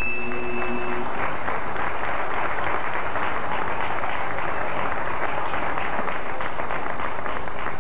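Audience applauding, with dense steady clapping. The last held notes of a song die away about a second in.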